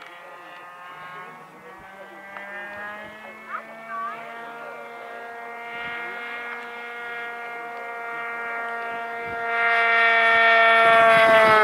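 Radio-controlled model airplane flying past: its engine's steady whine grows louder as it comes in low, is loudest near the end, and starts to drop in pitch as it passes.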